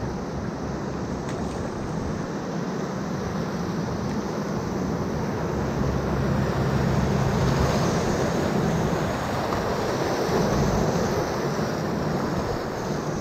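Whitewater rapids rushing around a kayak, with wind buffeting the camera microphone. The rush of water grows louder about halfway through as the boat drops into the breaking waves.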